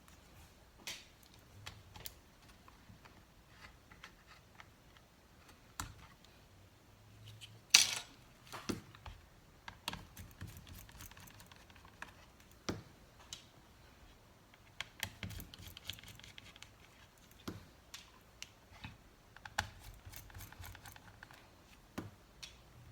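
Scattered small clicks and taps of a screwdriver and tiny metal screws being handled as a laptop is taken apart. One sharper click comes about eight seconds in.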